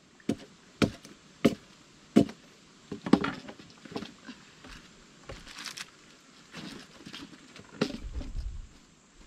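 Machete chopping firewood on a wooden plank: four sharp chops about two-thirds of a second apart, then a short crackle of wood splitting about three seconds in. Lighter clatter of wood pieces being handled follows, with a dull thump on the boards near the end.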